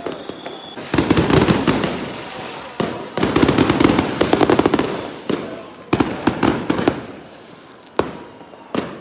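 Fireworks going off: three runs of rapid crackling pops, each lasting one to two seconds, then a single sharp bang about eight seconds in and another just before the end.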